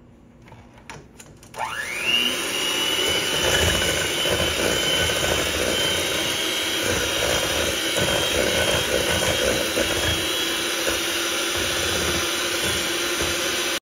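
A few light knocks, then a Black+Decker electric hand mixer starts with a rising whine about a second and a half in and runs steadily, its beaters creaming ghee and sugar in a stainless steel bowl. It cuts off abruptly just before the end.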